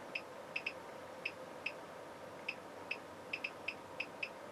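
Digital function generator's frequency knob being turned step by step, giving a short high tick at each step, about a dozen at uneven intervals, as the test signal's frequency is stepped up.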